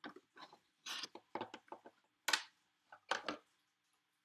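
Packaging being handled: a string of short rustles and scrapes, the loudest about two seconds in and a double one about three seconds in.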